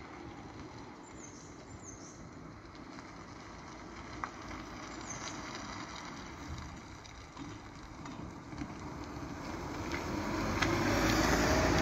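A car approaching and driving over the railway level crossing. Its engine and tyre noise grows steadily louder over the last few seconds as it comes close.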